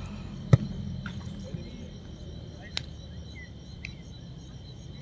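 Crickets chirring steadily, with one sharp thud of a football being kicked about half a second in and two fainter kicks later on.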